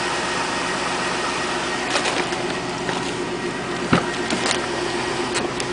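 2000 Chevrolet Tahoe's 5.3 litre V8 running cold with a steady knocking, which the owner takes for piston slap that fades once the engine warms up. A few sharper clicks stand out, the loudest about four seconds in.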